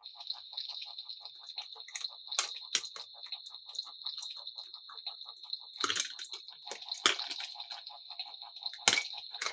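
Electronic toy sound effect from a small speaker: a rapid, even pulsing of about ten pulses a second over a steady high tone. Several sharp plastic clicks from the toy being handled are mixed in, the loudest near the end.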